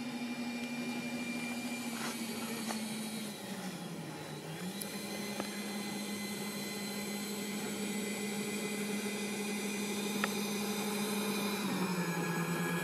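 Whine of the twin 70 mm ten-blade electric ducted fans on an RC CRJ 700 model jet taxiing. The pitch dips briefly and comes back up about four seconds in, steps down slightly near the end, and the sound grows a little louder as the model nears.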